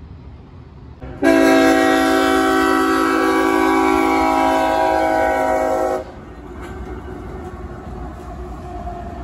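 Locomotive air horn sounding a chord of several notes in one long blast of about five seconds, starting and stopping abruptly, followed by the steady rumble of a passing train.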